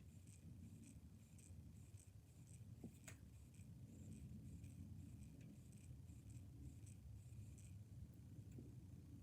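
Near silence: faint room hum with a single small click about three seconds in and light rubbing, typical of plastic controller parts being handled during disassembly.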